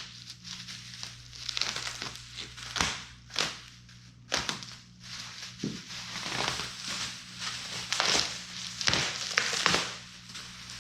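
Cardboard shipping box and its packing being cut and pulled open by hand: irregular crinkling and scraping with scattered knocks.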